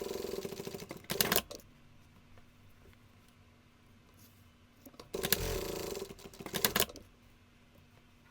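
Sewing machine stitching in short runs: about a second of fast rapid stitching at the start with a brief burst after it, a pause, then another run of about a second and a half and a short burst ending about seven seconds in.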